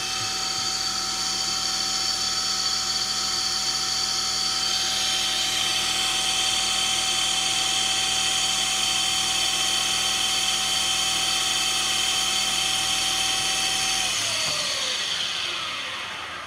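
Hercus PC200 CNC lathe spindle running steadily with a high motor whine while an aluminium ball knob is polished by hand in manual mode; the pitch shifts once about five seconds in. Near the end the whine falls as the spindle winds down and stops.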